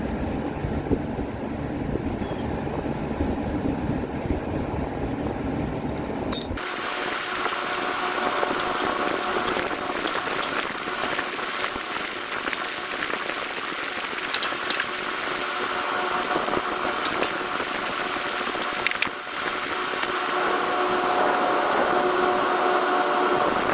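Refrigeration condensing unit running. A low rushing fan sound gives way suddenly, about six seconds in, to a steady hum with several held tones and a few light clicks.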